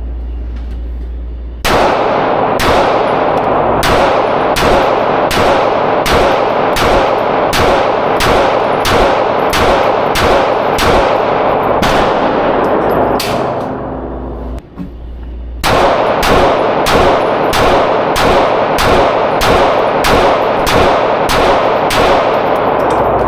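Handgun shots fired in quick succession, about two a second, in two long strings separated by a pause of a couple of seconds near the middle.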